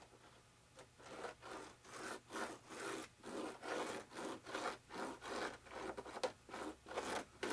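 Wooden stir stick spreading 20-minute epoxy on a foam wing, scraping and rubbing across the surface in quick repeated strokes, about two or three a second, starting about a second in.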